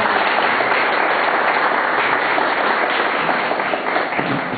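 Audience applauding: many hands clapping in a dense, steady patter that eases a little near the end.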